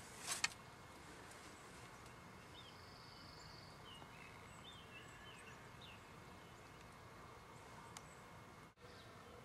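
Faint outdoor ambience with scattered small bird chirps and a short buzzy trill. Two sharp clicks at the very start are the loudest sounds.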